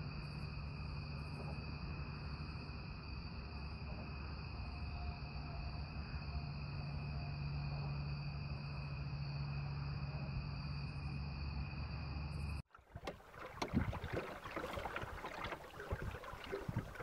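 Steady chorus of night insects at dusk, two high unbroken pitches over a low hum. About thirteen seconds in it cuts off suddenly and gives way to irregular splashes and knocks.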